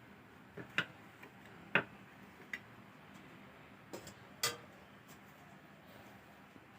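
About half a dozen light clicks and knocks at uneven intervals, the sharpest about two seconds in and again about four and a half seconds in, over a quiet background.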